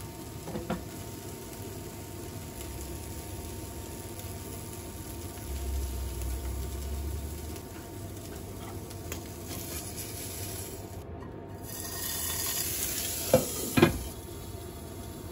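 Food sizzling in a frying pan while a utensil stirs and scrapes, with two sharp knocks of a utensil or pan close together near the end.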